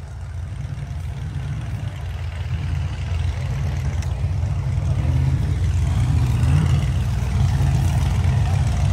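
Off-road race vehicle's engine running, a low rumble that grows steadily louder, with faint rising revs near the end.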